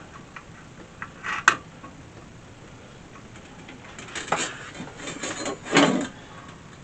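Hands connecting wiring on a diesel air heater: a sharp click about a second and a half in, then a few seconds of rubbing and rattling of wires and parts.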